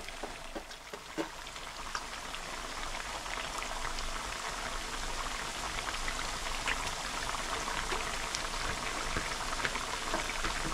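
Batter-coated potato pieces deep-frying in hot oil: a steady sizzle dotted with constant small crackles, growing slightly louder as it goes.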